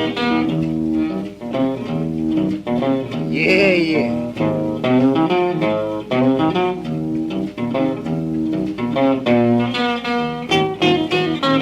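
Solo blues guitar playing a driving boogie figure, a steady thumbed bass under plucked treble runs, from a 1949 78 rpm record. A note is bent about three and a half seconds in.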